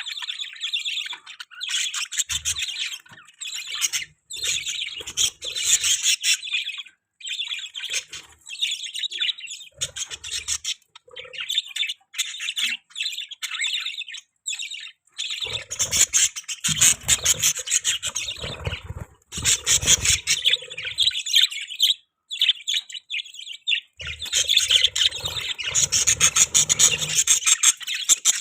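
Budgies chirping and warbling in a rapid, almost unbroken chatter, growing louder and busier about halfway through and again near the end.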